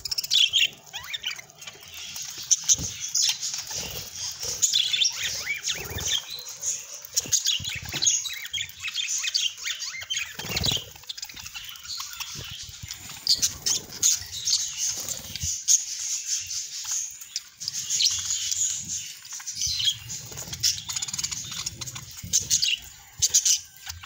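A flock of budgerigars chattering in a constant stream of short, high chirps, with wing flaps and scuffles in the cage.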